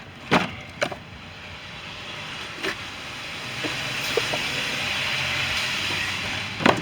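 A case of soda being shoved into a packed small car: a couple of knocks and thumps, then a rushing, scraping noise that swells over a few seconds and fades, ending with another sharp knock.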